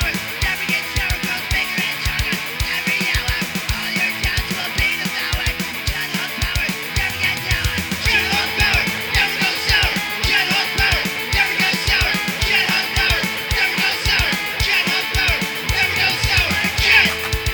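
Rock band playing with electric guitar over a steady, driving drum beat; a melodic line comes in over it about halfway through.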